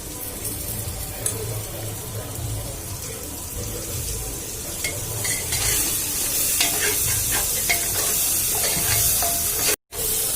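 Food sizzling in hot oil in a cooking pot while a spoon stirs and scrapes against the metal, with scattered clicks. The sizzle grows louder about halfway through and cuts out for a moment near the end.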